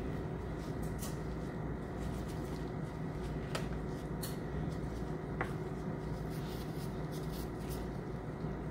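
Soft rustling and scattered light ticks of disposable-gloved hands folding and rolling softened rice paper around a filling on a wooden cutting board, with a few sharper clicks in the middle, over a steady low hum.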